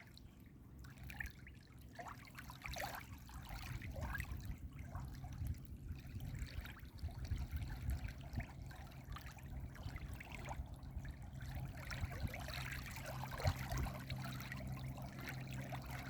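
Running stream water trickling, a steady irregular splashing patter.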